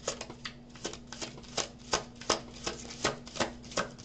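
A deck of tarot cards being shuffled by hand: a steady run of crisp card snaps, about three a second.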